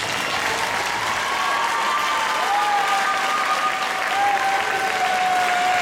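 Audience applauding in a large hall as the ballroom dance music dies away, marking the end of the heat. From about two seconds in, one long held high note rises above the applause.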